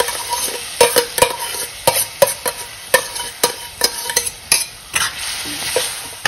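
Steel spoon scraping and clinking against a steel bowl and kadhai as cooked sprouted horse gram is tipped into a pan of masala, with many sharp clinks over a steady sizzle from the hot pan.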